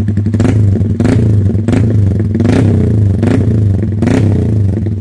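Yamaha Y15ZR motorcycle's single-cylinder four-stroke engine running through an aftermarket RCB Racing exhaust. The note is loud and steady, with a regular swell about once a second.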